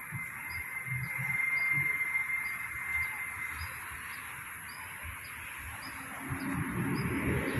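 Outdoor ambience: a steady high hiss with a faint short chirp repeating about twice a second, and a motor vehicle growing louder near the end.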